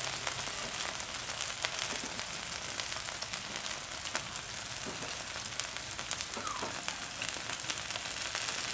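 Beef slices, potato and green beans sizzling on a hot tabletop grill pan: a steady hiss with many small pops and spits.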